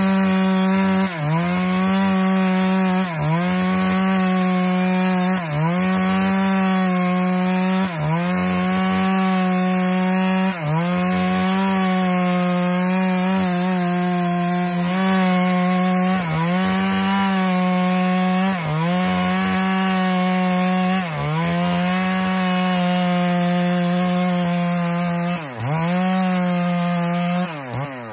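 Stihl MS 382 two-stroke chainsaw running at full throttle, ripping lengthwise along a red meranti log. Its pitch dips briefly and recovers about every two to three seconds as the chain is worked through the cut.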